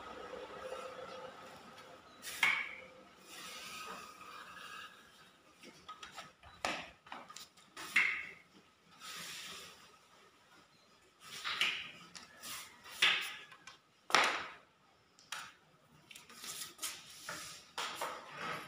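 A hand tool scraping and rubbing wet skim coat across a plastered pillar in short, irregular strokes, several of them sharp and loud.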